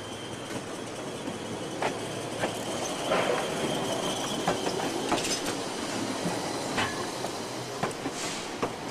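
A 1920s ex-Melbourne W2-class streetcar rolling past close by, its wheels clicking sharply over rail joints and switchwork several times. A thin, steady wheel squeal runs through the first half.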